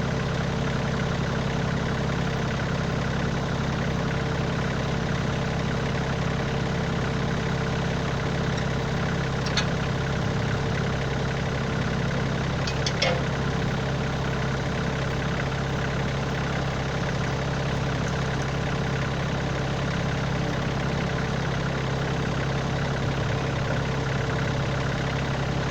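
Kioti compact tractor's diesel engine idling steadily, with a couple of faint clicks about ten and thirteen seconds in.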